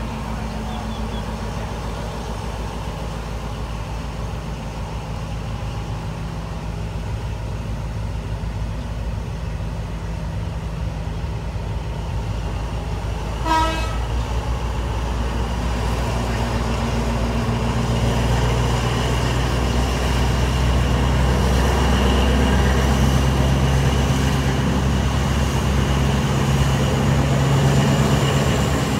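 Diesel passenger train running along the track, heard from on board: a steady low rumble with a low engine hum that grows louder in the second half. About halfway through there is one short horn toot.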